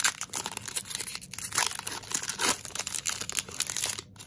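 Foil wrapper of a 2021 Diamond Kings baseball card pack being torn open and crinkled by hand, a dense run of crackling, rustling rips that stops about four seconds in.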